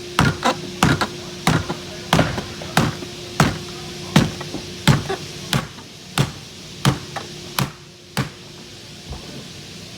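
Rubber mallet striking a polycarbonate wedge to drive trim out of a door panel: a steady series of dull taps, about two a second, stopping about eight seconds in.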